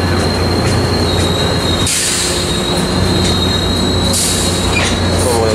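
Tri-Rail bilevel passenger coaches rolling past at close range: continuous rumble of wheels on rail with a steady high-pitched wheel squeal. Two short bursts of hiss come about two and four seconds in.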